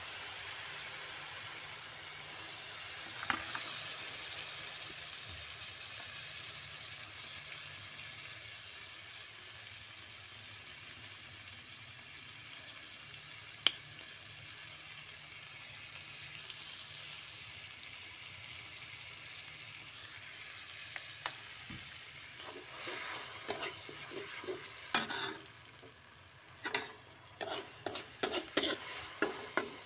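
Sliced onion and chillies sizzling steadily in hot oil in a wok. In the last third the slotted spatula stirs them in quick strokes, scraping and clacking against the wok.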